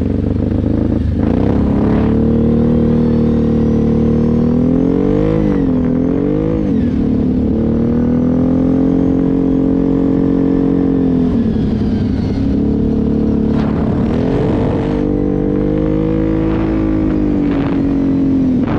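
Kawasaki KFX 700 ATV's V-twin engine running under way, mostly holding a steady pitch. It revs up and down twice in quick succession about five seconds in, then drops off around eleven seconds and picks up again.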